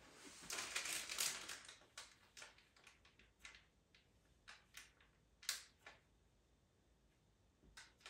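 Pastel pencil scratching on pastel mat paper: a quick run of strokes about half a second to a second and a half in, then single short strokes, the loudest about five and a half seconds in.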